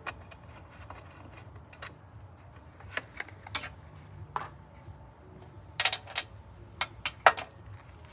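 Sharp clicks and clatter of a hand tool, bolts and a plastic recoil cover being handled as the cover is taken off a push mower's engine, with a quick run of louder clicks about six seconds in.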